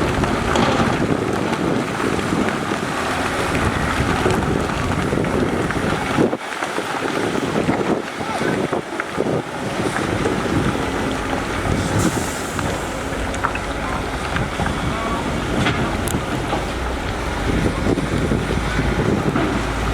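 Heavy construction machinery running, with wind buffeting the microphone: a steady rough rumble with occasional knocks.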